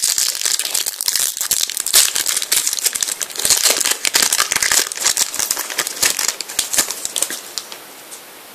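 A foil trading-card packet crinkling and crackling in the hands as it is opened. Near the end the crinkling dies down.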